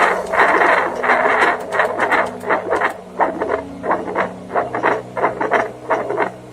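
Handheld fetal Doppler's loudspeaker playing a man's own heartbeat picked up through his chest: rhythmic whooshing pulses, about two a second.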